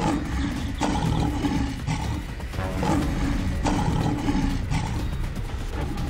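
Tiger roars and growls from a cartoon sound effect, laid over background music.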